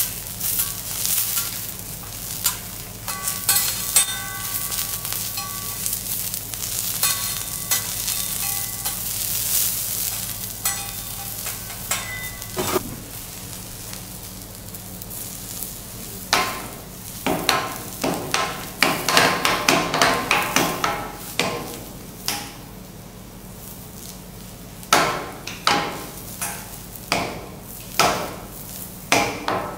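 Vegetables sizzling on a steel teppanyaki griddle while metal spatulas scrape and clink against the plate. From about halfway, the spatulas strike the griddle in a run of sharp clacks, nearly once a second near the end.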